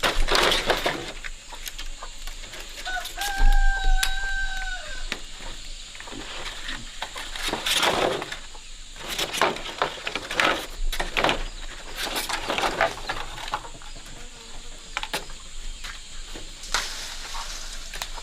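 Chickens clucking and squawking in repeated short bursts, with a rooster crowing once about three seconds in: a held call that drops at the end.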